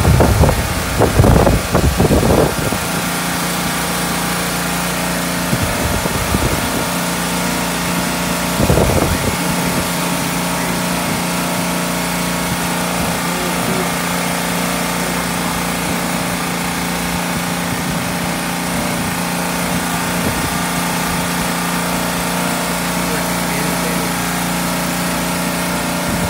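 An engine runs at a steady idle, a constant low drone with a hiss of wind and rain over it. There are a few louder low rushes in the first couple of seconds and again about nine seconds in.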